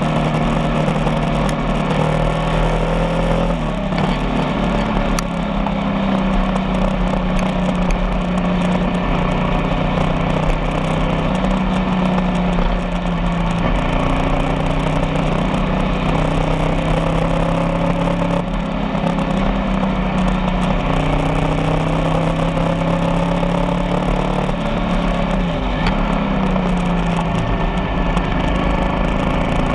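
Motorcycle engine running while riding, its pitch rising and falling slowly with the throttle, over a steady rush of road noise.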